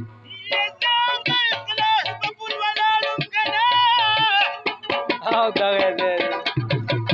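Instrumental folk music: a rubab plucking a fast, ornamented melody with slides, accompanied by hand drumming on a clay pot (mangay) whose low thuds come and go.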